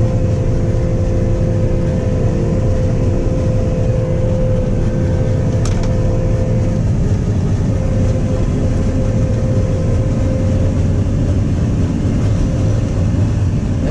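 Combine harvester running steadily, heard from inside the cab: an even mechanical drone with a steady whine, and a single click about six seconds in.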